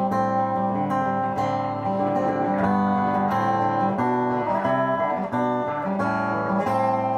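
Acoustic guitar playing chords, an instrumental passage without singing.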